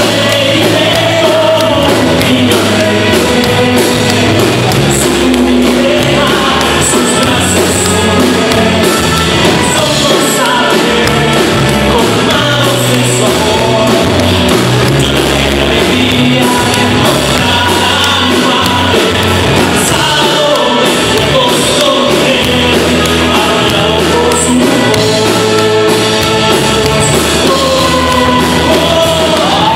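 A man singing a Spanish-language song with a live band of drums, electric guitars and keyboard, recorded on a mobile phone from the audience.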